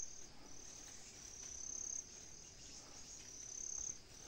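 Faint insect song, cricket-like, trilling in short high-pitched phrases about one a second.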